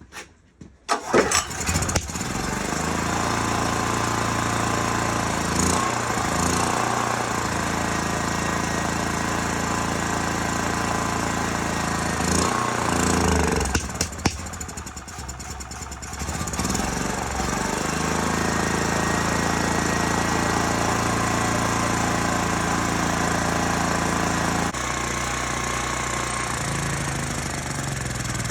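Small portable generator engine catching about a second in and running on choke, steady at first; about fourteen seconds in there is a sharp pop and it stumbles and nearly dies, then picks back up. The engine runs only in the choke position and leans out and dies when moved to run, a sign of fuel starvation at the carburetor.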